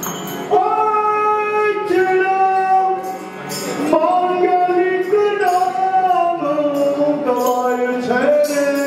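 A man singing a devotional hymn in long held notes that step from pitch to pitch, accompanied by harmonium, with a few tabla strokes.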